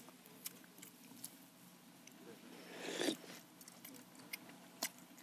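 Quiet eating at a table: scattered light clicks of chopsticks and utensils against wooden bowls, with a short slurp of hot broth about three seconds in.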